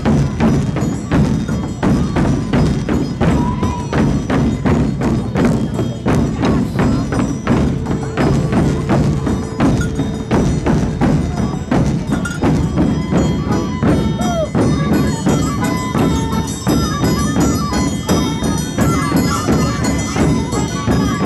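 Button accordion playing Sardinian folk dance music, with bells clanging in a steady beat of several strokes a second.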